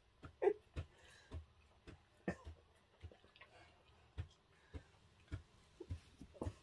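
Golden retriever chewing and smacking its lips as it eats from a hand: faint, irregular soft clicks and smacks, one or two a second.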